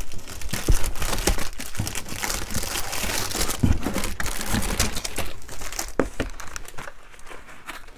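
Plastic packaging bags crinkling and rustling as items are rummaged through in a box, with scattered light knocks, dying down near the end.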